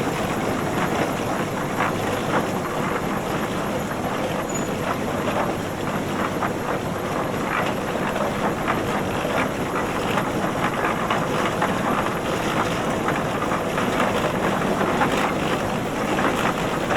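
Tractor engine running at a steady speed, an even mechanical clatter with no revving up or down.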